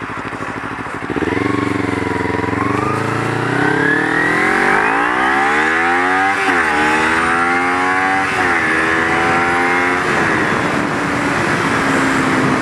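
Kawasaki Ninja 250R's parallel-twin engine accelerating away from a stop. Its pitch climbs steadily, dips sharply twice as it shifts up, then holds steady at cruising speed, with wind rushing over the helmet camera.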